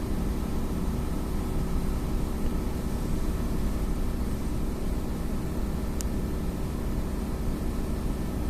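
A steady low droning hum and rumble, with a faint thin high tone held above it and a single short click about six seconds in.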